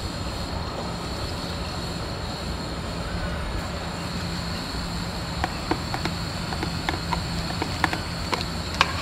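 Pot of curry base cooking on the stove as tamarind water goes in: a steady low rumble throughout. From about halfway in come sharp, irregular clicks and pops.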